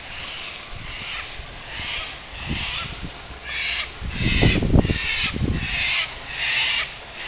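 A bird giving a long series of harsh, crow-like calls, about one every half second to second, growing stronger in the second half. A low rumble comes in about four to five and a half seconds in.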